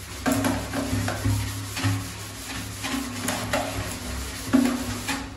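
A dish scrubber rubbing back and forth over a wet, lathered plastic bucket in a string of uneven scrubbing strokes.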